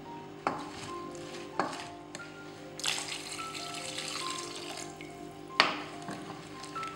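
Water pouring into a stainless steel pressure cooker of spiced yam curry for about three seconds, with a few sharp knocks of a wooden spatula against the pot; the last knock is the loudest.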